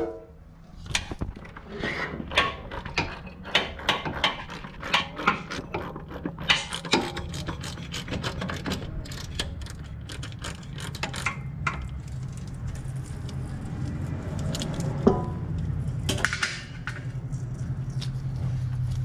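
Ratchet wrench clicking in a run of short strokes, loosening the oil filter housing on a Lexus GX 460, for about the first twelve seconds. After that a low steady hum, with one more sharp click.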